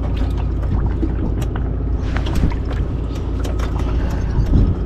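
Bass boat's outboard motor running at idle, a steady low rumble, with scattered light clicks and knocks.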